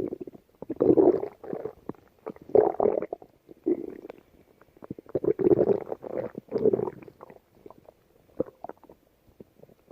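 A hungry person's empty stomach growling and gurgling in a string of irregular bursts, the strongest in the first seven seconds and a few smaller gurgles near the end.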